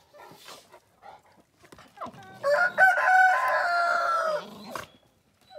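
A rooster crowing once, a single drawn-out call of about two seconds that begins two seconds in, rises, holds and drops at the end. Before it, soft scuffling and panting from dogs at play, and a sharp knock just after the crow.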